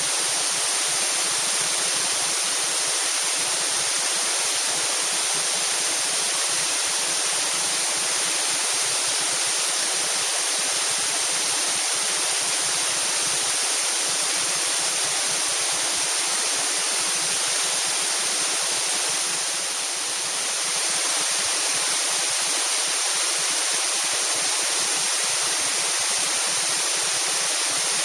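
Tiered cascade waterfall, falling water making a steady hiss that is strongest in the upper register, dipping slightly about twenty seconds in.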